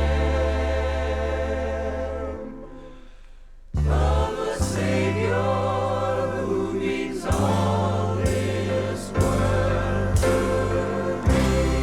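Gospel choir singing sustained chords over a band with deep held bass notes. The sound fades about two and a half seconds in, then the full choir and band come back in sharply near four seconds and carry on.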